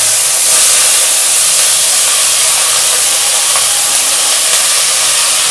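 Chopped onions sizzling in hot mustard oil in a wok as they are tipped in: a loud, steady, dense hiss.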